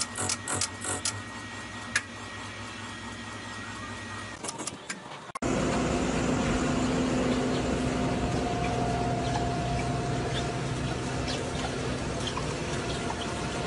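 For the first five seconds or so, a machine spins a disc against a metal block clamped in a vise: rapid ticking over a steady whine. About five seconds in, the sound cuts to a cabbage harvester running in the field, a louder steady engine and conveyor drone with a hum that continues to the end.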